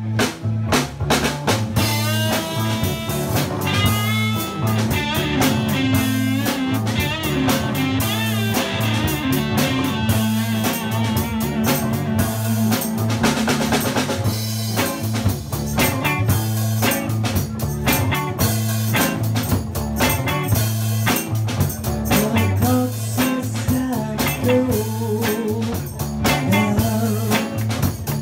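Live rock band playing: drum kit with rimshots, electric guitar, bass and a Nord Electro keyboard.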